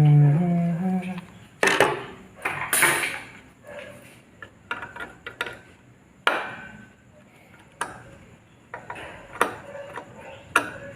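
Irregular knocks, clicks and scraping of hard metal and plastic parts as a graphics card is pried open by hand to get at its cooler and heatsink.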